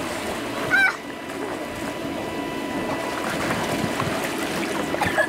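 Steady rush of water running over an inflatable water slide together with the slide's air blower, with a faint steady whine underneath. A child gives a short shout about a second in.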